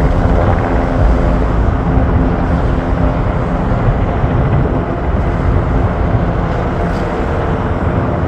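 Surion fire helicopter flying, a loud steady rotor and engine noise with a humming stack of tones that weakens after the first couple of seconds.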